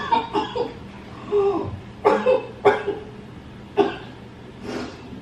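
A woman coughing repeatedly, several short coughs with pauses between them, put on as part of a fake coughing-up-blood prank.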